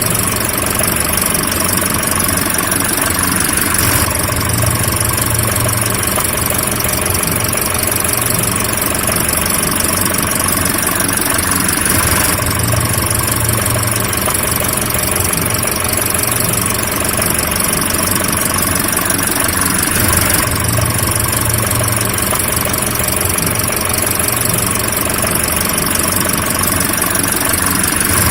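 Car engine running steadily with no revving. The sound shifts slightly and repeats in a cycle of about eight seconds.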